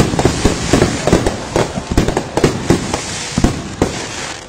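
Aerial fireworks bursting overhead: a rapid run of sharp bangs and crackles, several a second, thinning and growing quieter toward the end.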